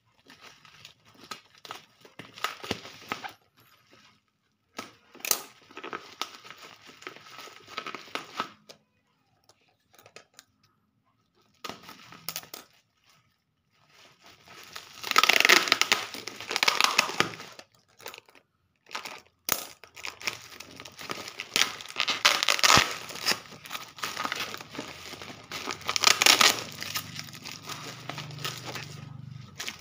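Black plastic bubble wrap and packing tape being torn and crinkled by hand to unwrap a parcel, in rustling bursts with short pauses, busiest in the second half.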